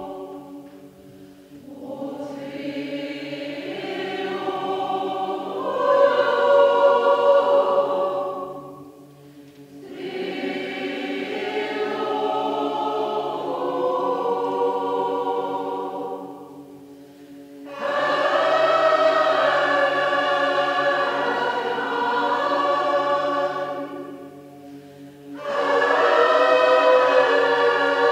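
Large mixed choir singing in a church, in long phrases of about eight seconds with a short pause for breath between them.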